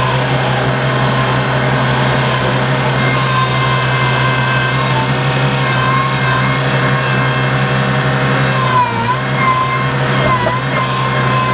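Bobcat 853H skid steer's engine running steadily. Its pitch dips briefly twice near the end, as if under momentary load.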